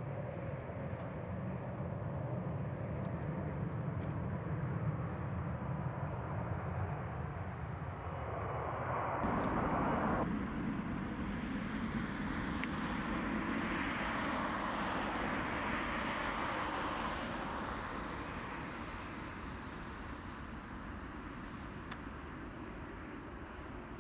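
Boeing 767-300 jet engines at takeoff power, a loud rushing roar that builds to a peak about ten seconds in. The roar then fades slowly as the airliner climbs away.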